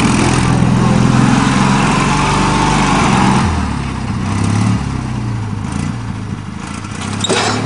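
Argo eight-wheel amphibious ATV's engine running under throttle, its pitch dropping and the sound easing off a little past three seconds in, then rising and falling as the throttle is worked. A brief knock near the end.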